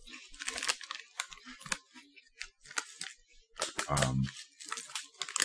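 Crunchy corn-shaped chocolate snacks being chewed: a run of irregular crisp crunches, with a short hum about four seconds in.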